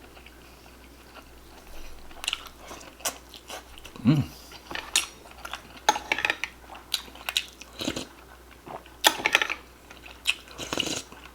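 A person chewing and eating close to the microphone, with many short, sharp mouth clicks and a few faint taps.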